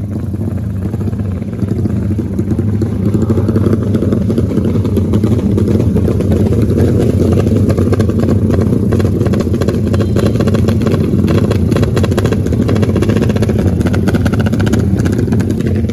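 Motorcycle engines running steadily, growing louder about two seconds in.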